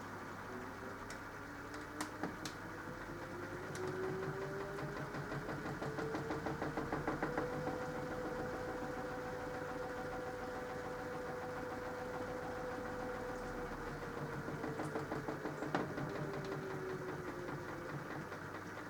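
Mini washing machine's drum motor speeding up with a rising whine, running steadily for several seconds, then slowing down again, with a light rattle as it speeds up and slows down.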